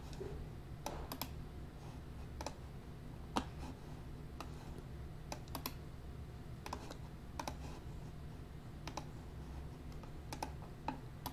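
Scattered sharp clicks of a computer mouse and keyboard, several in quick pairs, over a low steady hum.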